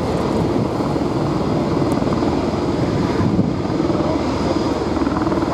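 Dornier 228-212's twin Garrett TPE331 turboprop engines and propellers running as the aircraft rolls along the runway, a steady drone.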